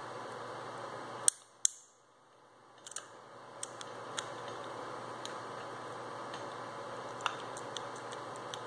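Metal and plastic parts of a Mitsubishi M000T20873 starter motor's brush holder and armature clicking as they are worked by hand. Two sharp clicks come a little over a second in, then scattered light ticks, over a steady background hiss.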